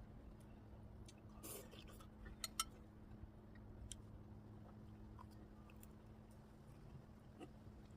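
Quiet eating sounds: faint chewing and a few small clicks and taps, the loudest a quick pair about two and a half seconds in, over a low steady hum.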